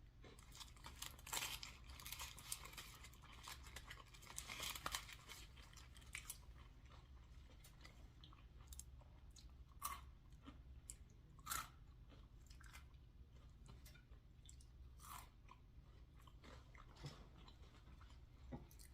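Close-miked chewing of a fast-food burger and Cajun fries, with crisp crunches and wet mouth clicks. There are two denser runs of crunching near the start, then slower, scattered chews.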